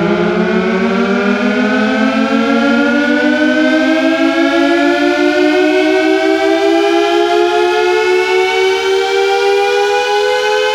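Air raid siren winding up, a loud wail of two close tones whose pitch climbs slowly and steadily the whole time.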